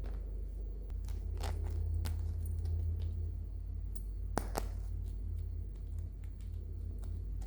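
Toy and plastic packaging being handled close up: scattered soft crinkles and clicks, with two sharp clicks about four and a half seconds in, over a steady low hum.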